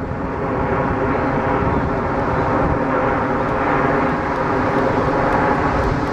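Formation of Canadair CT-114 Tutor jets passing overhead: a steady drone of their single turbojet engines with several held tones through it.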